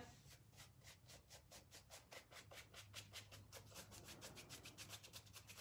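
Faint, quick, even strokes of a paintbrush on canvas shoe fabric, about seven a second, blending the paint.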